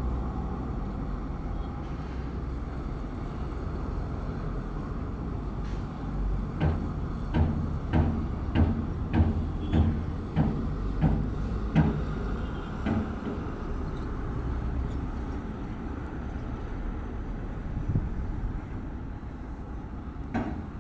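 Construction site noise: a steady low rumble, with a run of about a dozen evenly spaced knocks, roughly one every half second, in the middle.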